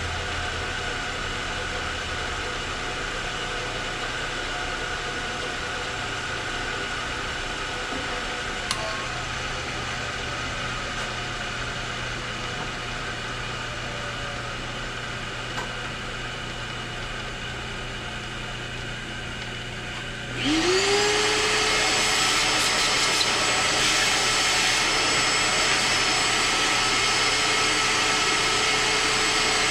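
Machine tool running steadily during a boring cut in a zinc die-cast carburetor float bowl. About two-thirds of the way through, a louder motor spins up to a steady whine, runs for several seconds, then spins down near the end.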